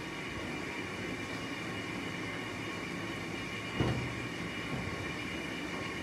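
Steady mechanical hum of laundromat machinery with a few steady tones in it, and a single thump just under four seconds in as laundry is pulled from a front-loading washer drum.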